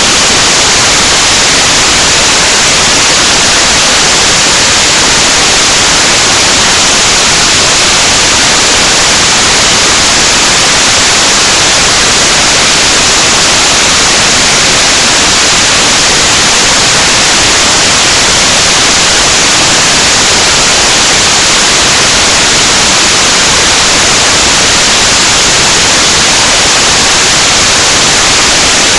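Loud, steady static hiss: an even white noise that cuts in abruptly and holds unchanged.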